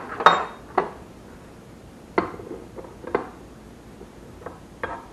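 Metal tools clinking and knocking against each other in a tool chest drawer as someone rummages through it, a handful of separate knocks a second or so apart.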